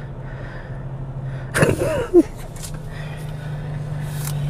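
Steady low hum inside an idling car, with a short breathy vocal sound from a person about a second and a half in.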